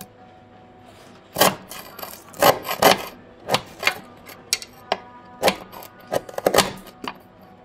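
A metal bar prodding and scraping at rusted underbody metal on a Mercedes: a dozen or so short, sharp scrapes and crunches at an irregular pace, starting about a second and a half in. The corroded metal and underseal are flaking away under the tool.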